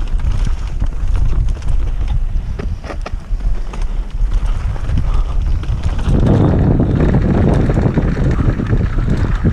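Wind rushing over the microphone of a camera on a mountain bike speeding downhill, with scattered clicks and knocks of the bike rattling over rough trail. The rush dips for a few seconds and turns heavier again about six seconds in.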